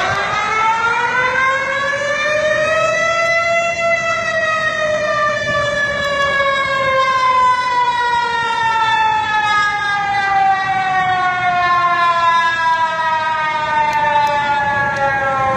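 Emergency warning siren sounding one long wail: the pitch rises for about four seconds, then glides slowly down, dipping more steeply near the end.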